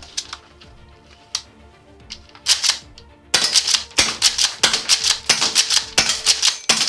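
Golden Eagle M870 gas airsoft pump shotgun firing a rapid string of sharp shots, about three a second, starting a little over three seconds in, over background music.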